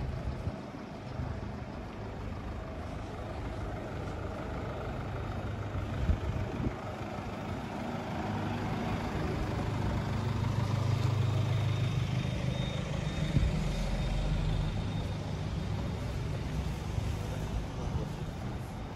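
Street traffic with a heavy vehicle's engine running close by, swelling to its loudest a little past halfway, with a couple of sharp knocks.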